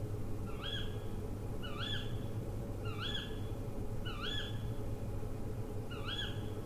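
An owl giving a short, high call that rises then falls, five times about a second apart, with a longer pause before the last. A steady low hum lies underneath.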